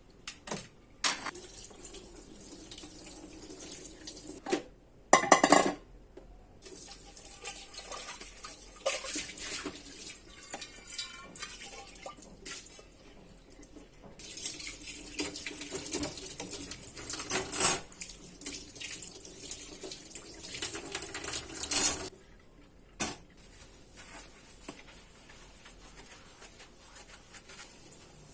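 Water running from a tap into a sink, starting and stopping, with dishes and cutlery clinking. There are several sharper clatters, the loudest about five seconds in.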